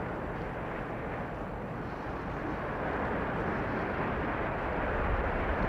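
Strong wind rushing over the microphone: a steady, rumbling noise with no distinct events.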